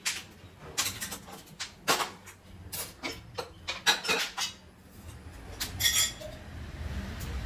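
Metal pots and steel utensils clanking and scraping as they are shifted on a gas stove, with a run of sharp knocks and a ringing steel clink about six seconds in. A low steady rumble builds near the end.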